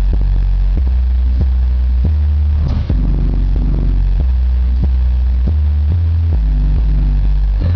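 Two 12-inch Blaupunkt subwoofers in a box, driven at 300 watts RMS, playing the deep bass line of a hip-hop track loudly. The bass notes step in pitch every half second to a second, with faint drum hits above them.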